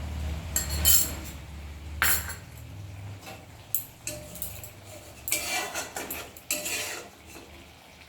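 A cooking utensil scraping and clinking against a pan in a handful of separate strokes, as the curry is stirred after spice powder has gone in.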